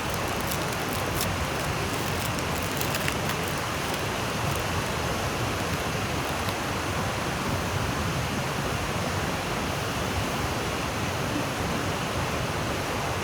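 A river and waterfall rushing steadily, with a few light clicks in the first three seconds.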